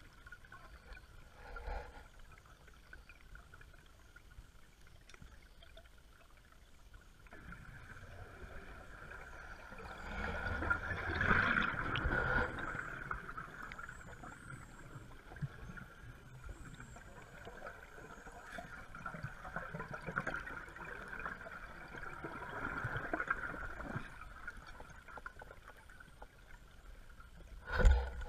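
Scuba diver's exhaust bubbles gurgling, heard underwater, starting about seven seconds in and loudest around ten to twelve seconds. A single sharp knock near the end is the loudest sound.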